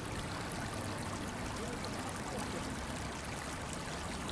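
Small river running: a steady rush of water with faint gurgles.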